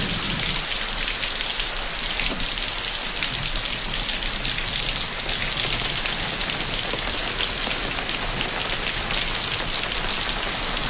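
Steady heavy rain falling, a dense, even hiss of drops with no break.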